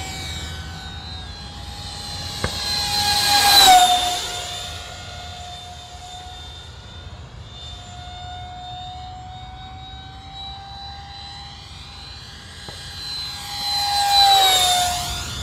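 64 mm electric ducted fan of a foam RC F-16 model jet whining steadily in flight. It makes two loud low passes, about four seconds in and again near the end, each time the whine dropping in pitch as the jet goes by.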